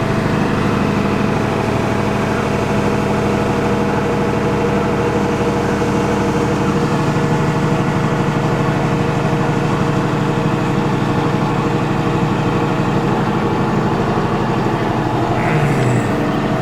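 Tractor diesel engine running steadily under load, heard from inside the cab, with its note shifting about seven seconds in.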